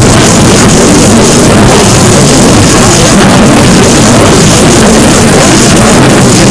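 Deliberately overdriven, clipped audio at full volume: a constant wall of distorted noise that never lets up.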